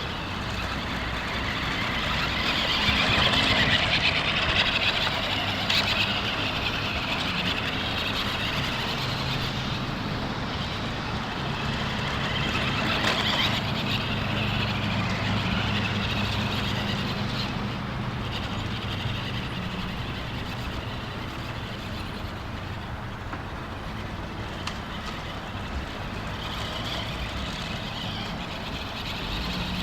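Toy remote-control monster truck driving on dirt, its electric motor and gears whirring, louder about three seconds in and again around thirteen seconds.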